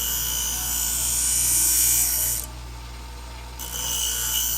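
A steel kitchen-shear blade being ground on the spinning 240-grit diamond wheel of a Twice As Sharp scissor sharpener, a high rasping grind over the steady hum of the machine's motor. The grinding stops for about a second midway and then starts again for a second pass.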